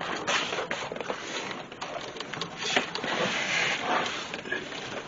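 Rustling and scraping with irregular knocks and clicks: someone shifting about on cardboard on a concrete floor and handling the camera while getting down under a car.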